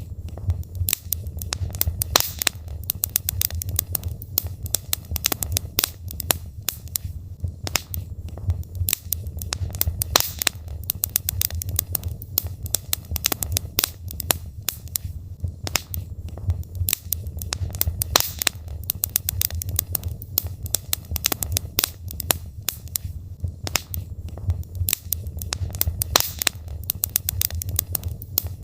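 Wood fire burning in a fireplace: logs crackling and popping in irregular sharp snaps over a steady low rumble of the flames.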